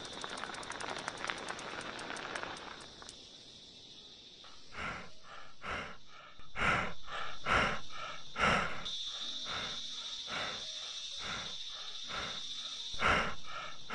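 Steady high insect drone of crickets or cicadas, with faint fast ticking in the first few seconds. From about four seconds in, a run of short breathy pulses comes at irregular intervals of roughly half a second to a second.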